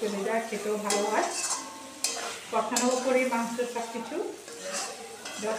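A steel spatula stirring and scraping meat that is sizzling in a steel kadai as it is browned with spices and tomato, with short metal-on-metal scrapes and clinks. A wavering pitched tone sounds behind it.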